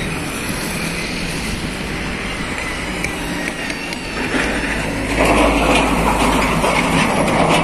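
A UD (Nissan Diesel) PK260 diesel tractor head pulling an empty skeletal container trailer drives up and passes close, with its engine running and its trailer rattling. The sound grows louder from about five seconds in as the truck goes by.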